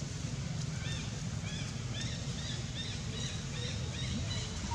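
A run of short, high, arched chirps, about three or four a second, starting about a second in, over a steady low rumble of background noise.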